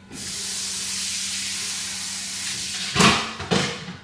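A steady hiss lasting about three seconds, then several sharp, loud knocks.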